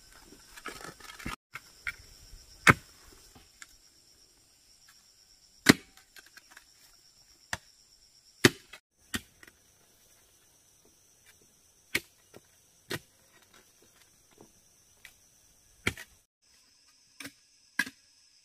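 A long-handled digging tool strikes hard, clay-rich earth in irregular single blows a second or few apart, some louder than others. A steady high drone of insects runs underneath.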